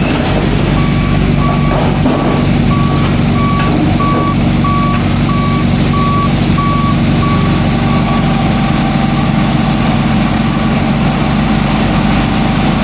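Heavy construction vehicle's engine running steadily, with its reversing alarm beeping about one and a half times a second, stopping about eight seconds in.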